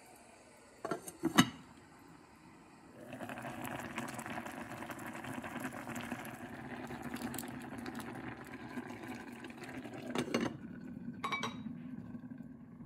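Glass lid clinking twice onto a TOPWIT electric hot pot, then water with noodles in it boiling hard in the pot. Around ten seconds in the lid clinks back on twice, and the boiling goes on more quietly under it.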